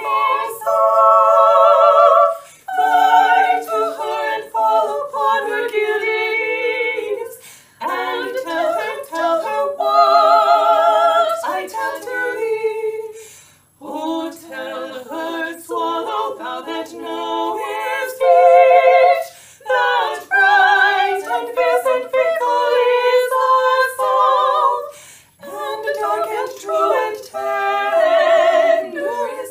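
Three women's voices singing a cappella in harmony, with vibrato, in phrases of a few seconds separated by short breaks.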